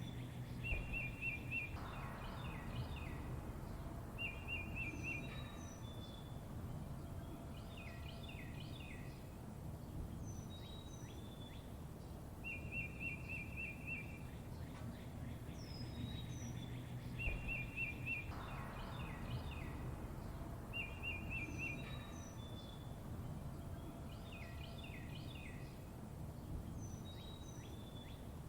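Small songbirds chirping: a short, rapid, even trill repeats every few seconds, mixed with thin, high down-slurred whistles and quick clusters of falling chirps, over a steady low background rumble. The same passage repeats about every 16 seconds, as in a looped recording.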